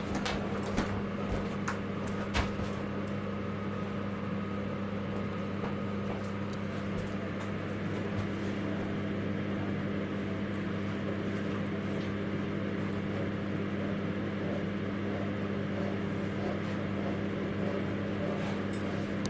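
A steady low hum throughout, with a few light knocks in the first two or three seconds.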